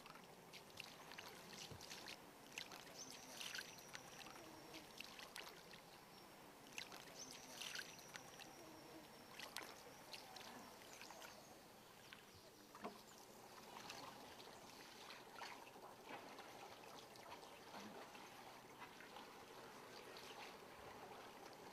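Faint splashes and drips of oars working calm water as a wooden rowed sampan moves along, with scattered soft knocks and a thin high note twice.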